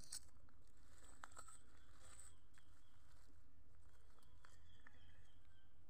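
Quiet scene with a few faint clicks and scrapes of small stones and gravel being shifted by hand, over a low steady background rumble.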